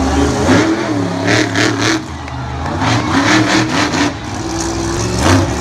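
Monster truck's engine revving, the throttle worked on and off so the pitch keeps rising and falling.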